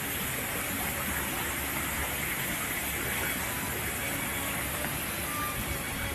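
Muddy floodwater rushing down a street: a steady, even rush.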